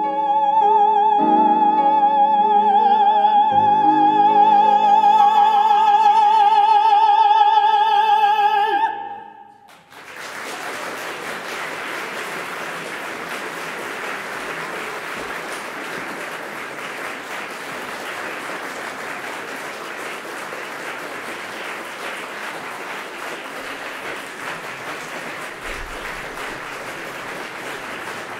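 Soprano and male singer holding the final note of a duet in operatic style, the soprano's high note with wide vibrato, cutting off about nine seconds in. Applause then fills the rest.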